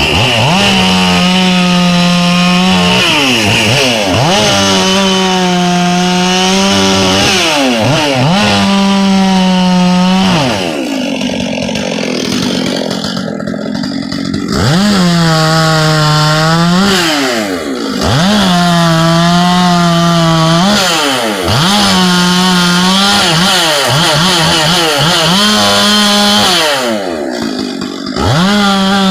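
Two-stroke chainsaw with a full-chisel 3/8 .050 chain cutting very dry, hard black oak. The saw is run up to full throttle and held there through a cut of two to three seconds, then drops back between cuts, about eight times. There is a longer lull near the middle.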